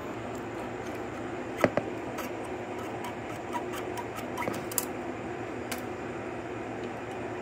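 Small metal clicks and light scraping as a thin 0.003-inch (0.076 mm) feeler gauge is worked into the valve clearance through the tappet inspection hole of a Suzuki DR-Z125's cylinder head. The sharpest clicks come as a pair about one and a half seconds in, with scattered lighter ticks after, over a steady background hum.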